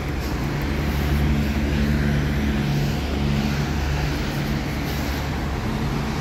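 Road traffic passing on a city street, under a steady low engine drone.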